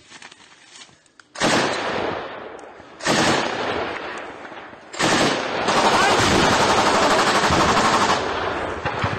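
Battle gunfire: three loud blasts about a second and a half apart, each trailing off. Then, from about six seconds in, a sustained burst of rapid automatic fire lasting about two and a half seconds.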